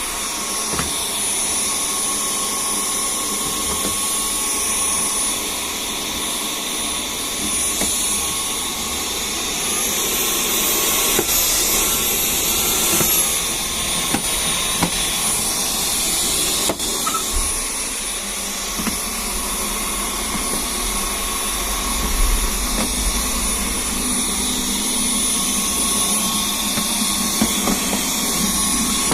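Dyson V10 cordless stick vacuum running steadily with a high motor whine. About ten seconds in, the whine rises in pitch for a few seconds, then settles back.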